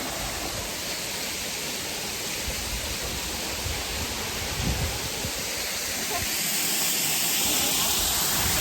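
Rushing water of a waterfall: a steady hiss that grows louder about six seconds in, with a few low thumps near the middle.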